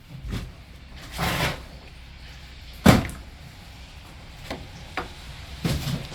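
Clunks from handling objects: one sharp, loud knock a little before three seconds in, with a brief scrape about a second in and a few lighter clicks near the end.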